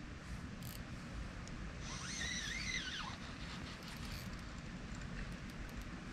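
Fishing rod and reel being worked while playing a hooked carp: faint, steady low handling and reel noise, with a brief wavering high whine about two seconds in.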